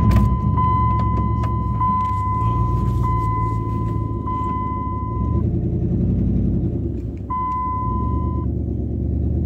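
Pickup truck engine running, heard from inside the cab, under an electronic warning chime: a steady high beep about a second long, four times back to back, then once more after a short pause.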